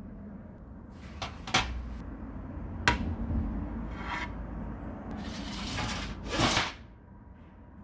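Hand work on the parts of an old electric planer: a few sharp clicks and knocks in the first three seconds, then scraping and rubbing strokes, the longest and loudest near the end.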